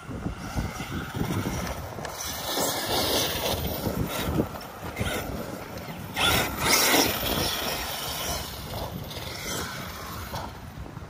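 Arrma Kraton 8S electric RC monster truck driving over dirt, mixed with wind on the microphone. A louder rush comes about six to seven seconds in.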